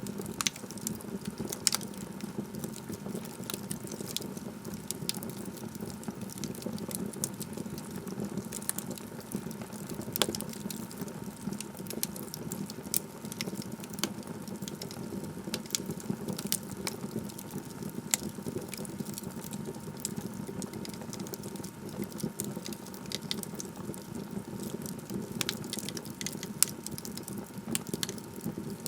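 Wood fire burning in a fireplace: a steady low rush of flame with frequent, irregular sharp crackles and pops from the burning logs.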